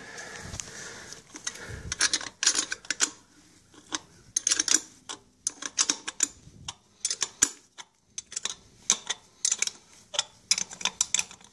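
A 13 mm wrench running up the bolt on a Ford 3000 tractor's power steering pump reservoir: irregular runs of quick metallic clicks, several short bursts in a row.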